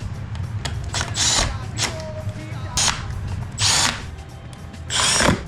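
Cordless drill or driver run in several short bursts, under half a second each, over background music.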